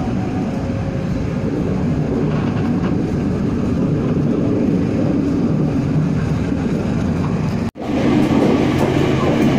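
Steady rumble and rattle of a moving locomotive-hauled passenger train, heard from inside a coach. The sound cuts out for an instant near the end and comes back slightly louder.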